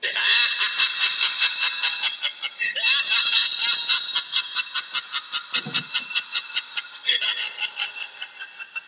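The small speaker of a motion-triggered sound module plays a recorded clip. It switches on suddenly as a person walks past the sensor and gives a tinny sound with a rapid pulsing pattern, which fades over the last couple of seconds.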